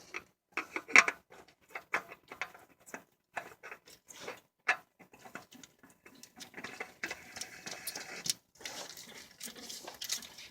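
Irregular clicks, taps and scrapes of hands and tools working on the car's underside while a new oil filter is fitted and the drain plug is put back in.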